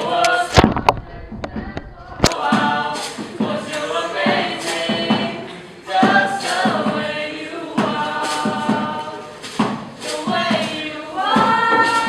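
A group of voices singing together in harmony, with sharp percussive knocks struck along with the song. Near the end the voices settle into long held chords.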